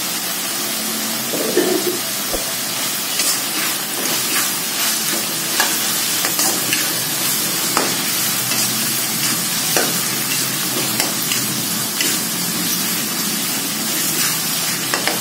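Blended chili paste frying in a wok with a steady sizzle, while a metal spatula stirs it, scraping and clicking against the pan every second or so.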